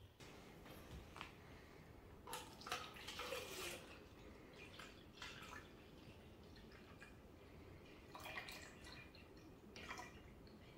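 Faint, intermittent trickling and spattering of a red drink poured from a plastic bottle into a clear plastic cup.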